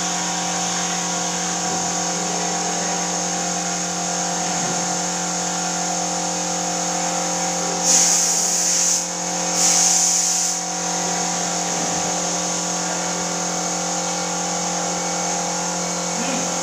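Air compressor running with a steady hum, with two hissing bursts of about a second each, about halfway through, as the air spray gun is triggered to spray finish onto wood.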